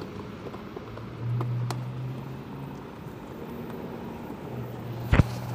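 Fog light snapping into its clip in a Ford Mustang front bumper: one sharp click near the end, with a few faint taps before it. A low engine hum comes and goes underneath.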